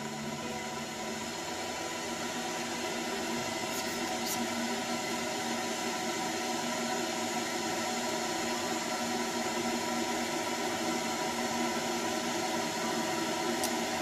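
Stainless steel electric kettle heating water: a steady rushing hiss that slowly grows louder as the water comes up to the boil.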